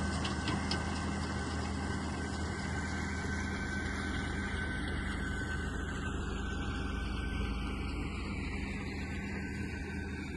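Distant Massey Ferguson 8120 tractor engine running steadily at work baling hay, a low even hum.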